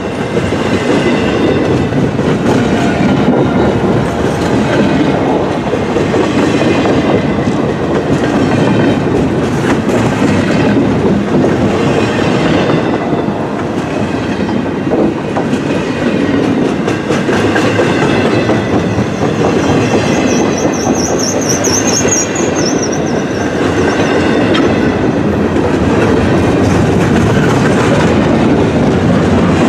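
Double-stack intermodal freight train rolling past: steady wheel and rail noise with a clickety-clack of wheels. A brief high, wavering wheel squeal comes about two-thirds of the way through.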